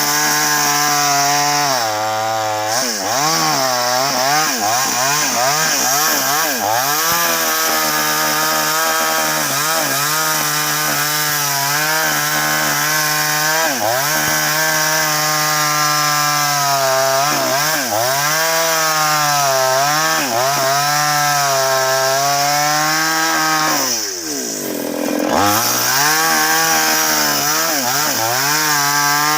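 Two-stroke chainsaw cutting into a large sengon (albizia) trunk, its engine speed wavering up and down as the chain bites and eases in the wood. About 24 seconds in the engine drops briefly toward idle, then revs back up and carries on cutting.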